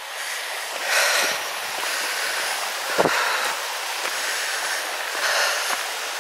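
A shallow brook running over stones: a steady rush of water that swells a little now and then, with a single sharp knock about three seconds in.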